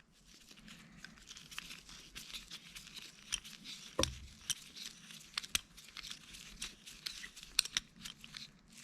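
Flathead screwdriver turning the screw back into a Crescent adjustable wrench: faint scraping and light metal clicks, with one louder knock about four seconds in.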